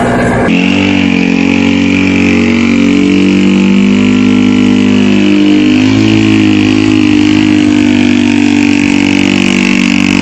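Motorcycle engine running steadily, with a steady high whine above its low, slightly wavering hum. It begins abruptly about half a second in.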